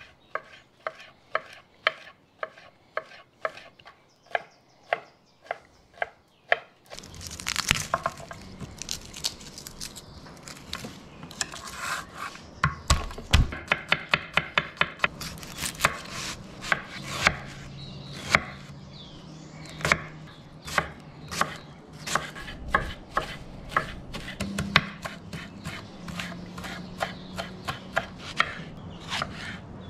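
Chef's knife chopping on a wooden cutting board, cutting red chilli, garlic and fresh cilantro: evenly spaced knocks about two a second at first, then quicker, denser chopping from about seven seconds in.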